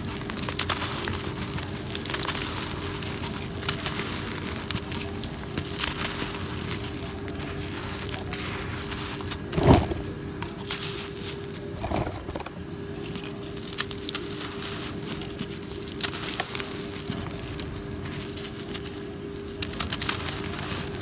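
Hands crumbling and rubbing chunks of dry, gritty cement, a continuous crackle of grit and small crumbs falling. A louder crunch comes about ten seconds in as a chunk breaks, and a smaller one about two seconds later.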